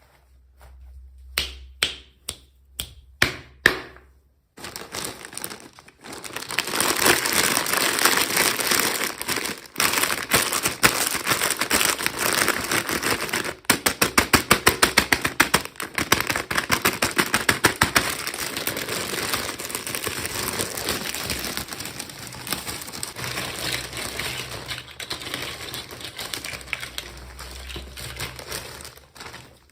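Hands handling small toy packaging: a few sharp clicks, then a long run of fast clicking and crinkling, with a few seconds of quick, evenly spaced clicks mid-way.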